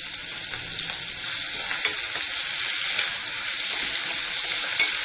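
Crushed ginger and garlic frying in hot oil in a pan with green chilies and curry leaves: a steady sizzle with a few small crackles.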